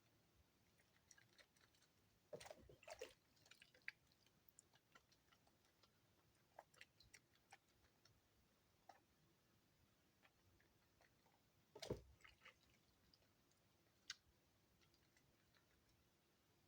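Faint wet clicks and squelches of a bar of EXXE soap being worked in wet hands, with two louder bursts of crackling, sticky squelching about two and a half seconds and twelve seconds in and a single sharp click near fourteen seconds.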